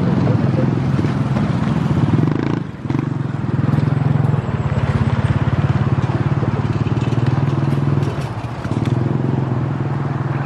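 Passenger train running past on the track: a steady low rumble with a fast, even pulsing, dipping briefly twice.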